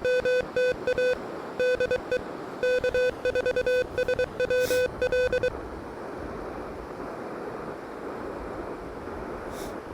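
Morse code sidetone from an Elecraft KH1 transceiver: a steady beep near 500 Hz keying out a CQ call for about five and a half seconds. It then stops, leaving a steady hiss while the operator listens for a reply.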